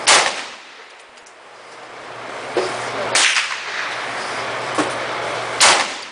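Three single semi-automatic shots from a .223 Norinco M4-style AR-15 carbine with a 10-inch barrel, fired a few seconds apart, each a sharp crack with a short echo.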